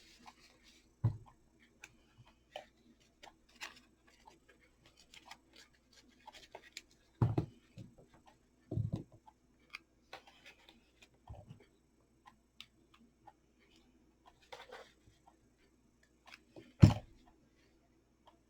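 Hands-on crafting noises: small irregular clicks and rustles of ribbon and parts being handled, with a few knocks of objects set down on a table, the loudest near the end.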